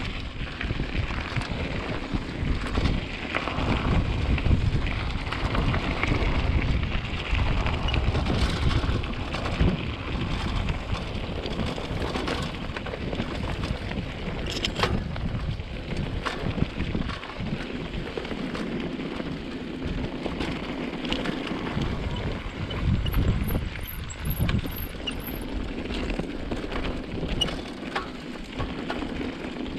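Mountain bike rolling over a rough dirt trail: a steady rumble of tyres on the ground, with scattered knocks and rattles from the bike, and wind on the microphone.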